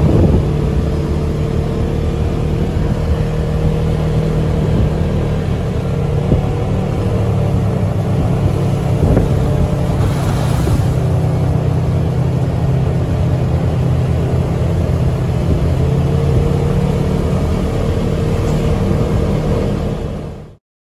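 Polaris RZR side-by-side engine running steadily while riding at cruising speed, with a constant drone and wind and road noise over it. The sound cuts off abruptly near the end.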